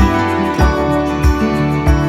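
Background music: an instrumental track with sustained tones and a steady beat of low thumps about every 0.6 seconds.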